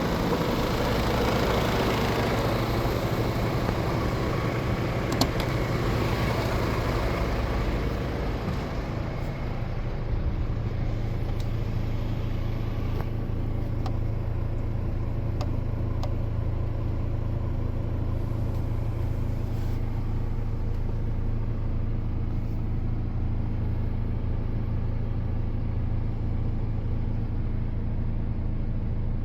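Diesel engine of a DAF XF 440 truck running steadily at idle. A hissing layer on top fades out about eight to ten seconds in, leaving a smoother, quieter idle. There is a single click about five seconds in.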